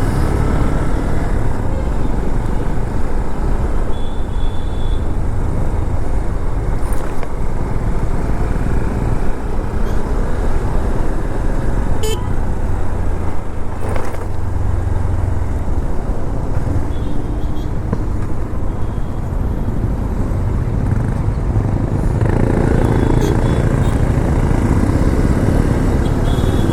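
Road traffic with a steady low rumble, broken by several short vehicle-horn toots.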